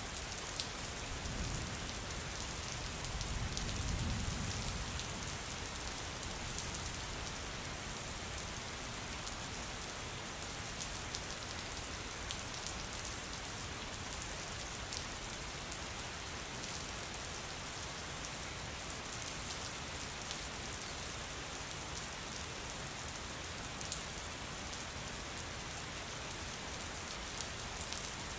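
Steady rain falling, with individual drops ticking sharply over the even hiss. A low rumble swells and fades in the first few seconds.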